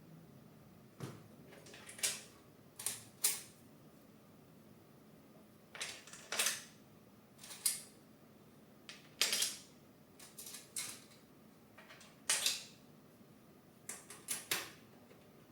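Irregular sharp clicks and clacks of plastic and metal 3D-printer parts being handled and fitted together during assembly, some in quick pairs.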